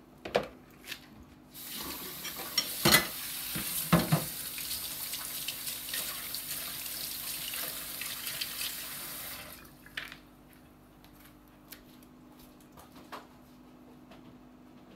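Kitchen tap running into a stainless steel sink, with a plastic mixing bowl and utensils knocking against it, two sharp knocks the loudest; the water stops after several seconds.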